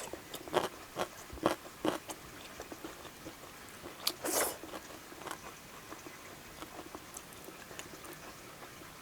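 Close-miked eating: chewing and biting with sharp wet mouth clicks, several in the first two seconds and a louder bite about four seconds in.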